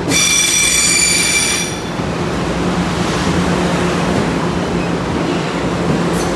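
M3 electric multiple-unit train rolling on its rails: a high, multi-toned wheel squeal for nearly the first two seconds, then a steady running rumble over a low hum.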